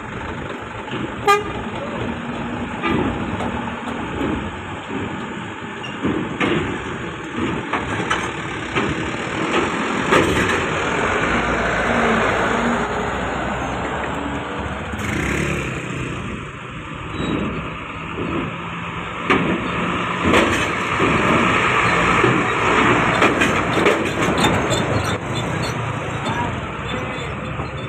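Trucks and motorcycles driving off a ferry onto its steel-grated loading ramp, their engines running continuously, with horn toots among the traffic.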